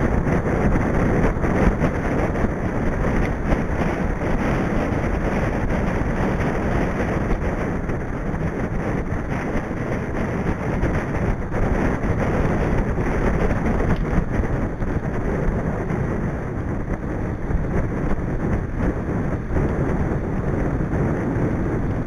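Steady rushing wind noise on the microphone of a bike-mounted camera while riding a mountain bike along a tarmac lane.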